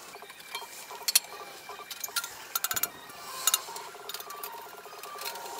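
Hand ratchet clicking in quick runs and metal tools clinking, with a few sharp knocks, while the exhaust fastenings on a motorcycle are worked.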